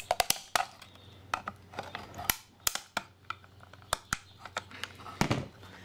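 Irregular sharp clicks and knocks of a screwdriver prying plastic parts out of a light fixture's housing, working them loose.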